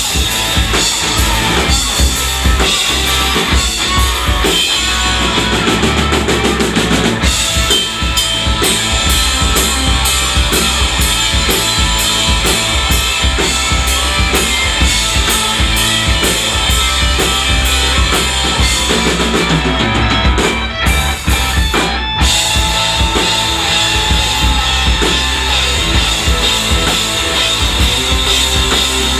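Rock band playing live, the drum kit to the fore with bass drum and snare. Through the middle a long run of rapid, evenly spaced drum hits builds up, broken by a short drop about twenty seconds in before the full band carries on.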